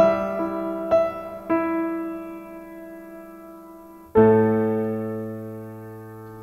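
Background piano music: a few struck notes that ring and fade, then a single chord about four seconds in that slowly dies away.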